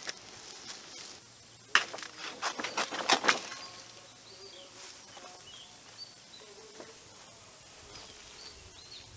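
A banana leaf rustling and crackling as it is handled at the plant, with a quick string of sharp crackles a couple of seconds in. Behind it, a faint steady insect buzz and scattered faint chirps.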